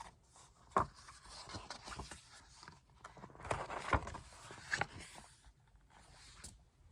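Book pages being turned: paper rustling with a few light knocks, loudest about three and a half to four seconds in.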